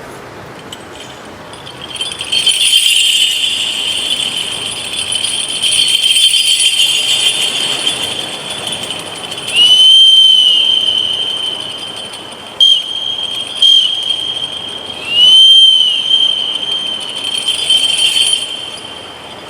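Foley train effect: a sustained high squealing whistle that starts about two seconds in, swoops up and back down twice, and gives two short stabs in between.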